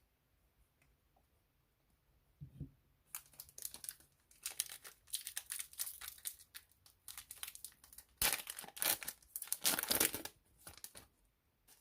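Trading card pack wrapper being torn open and crinkled: a run of rips and rustles starting about three seconds in, loudest near the end.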